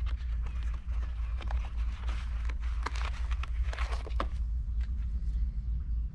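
Clicks and rustles of a camera gimbal and its parts being handled and lifted out of a foam-lined box, mostly in the first four seconds, over a steady low rumble.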